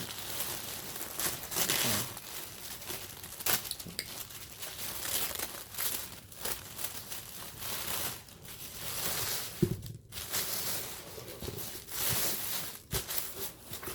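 Paper and cardboard packaging crinkling and rustling in irregular bursts, with some tearing, as a mailed box is opened and its wrapping handled.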